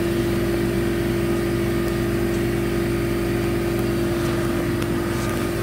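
Steady mechanical hum of running machinery, with several held tones at an even level.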